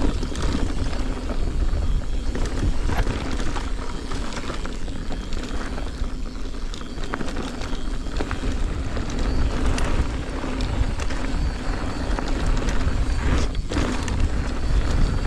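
Wind buffeting an action camera's microphone as a mountain bike rides down a trail, with tyre rumble and frequent small rattles and clicks from the bike over rough ground.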